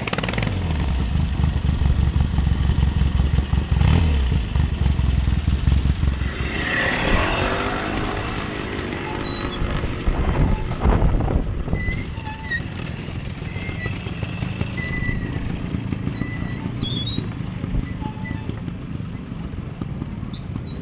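Classic trials motorcycle engines running at low speed, with a rise in revs around seven seconds in.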